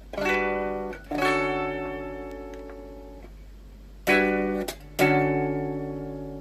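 Guitar chords strummed in two pairs. Each pair is a short chord that is damped quickly, then a chord left to ring and fade slowly.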